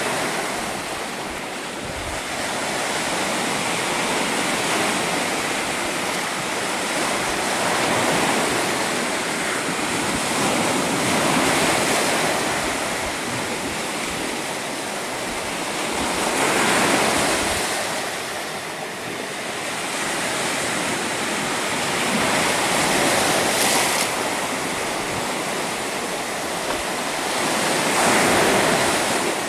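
Small sea waves breaking and washing up on a sandy beach, the surf swelling louder and falling back every few seconds. The sea is stirred up by a breeze.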